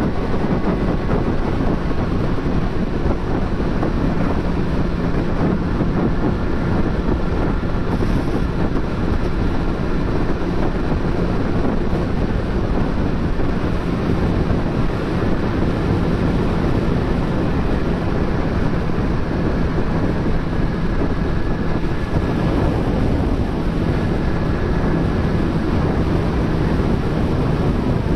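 2022 Suzuki GSX-R1000R's inline-four engine running steadily, with a ticking that the owner asks about as possibly abnormal for the new bike.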